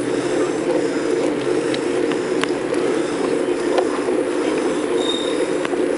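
Steady rushing road noise of a bike riding along a street, with scattered sharp clicks and rattles.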